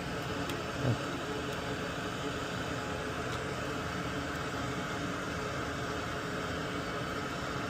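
Steady fan-like whooshing hum, with a soft low thump about a second in.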